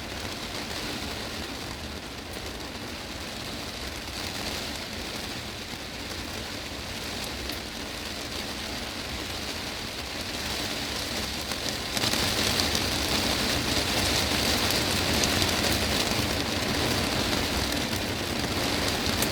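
Heavy rain drumming on a greenhouse's glass roof, a dense, steady hiss of drops. About twelve seconds in it suddenly grows louder and stays that way.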